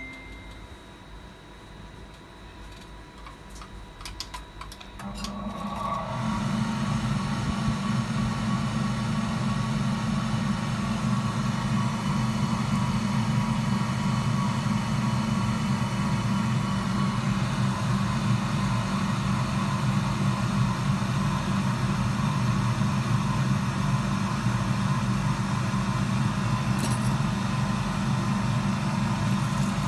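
Hot-air rework station running steadily, a constant blower hum that switches on about five seconds in, as it heats an iPhone 7 logic board to lift a chip.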